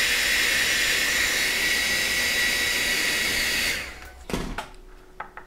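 Handheld hair dryer blowing on a fresh coat of airbrushed acrylic paint to dry it: a steady rushing with a thin high whine, switched off a little under four seconds in. A couple of light knocks follow.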